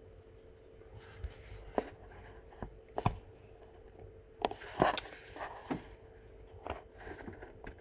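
Irregular light clicks and small scrapes of fingers working the wire retaining pin out of a Breville Barista Express grinder's plastic upper burr carrier, with the sharpest clicks about three and five seconds in.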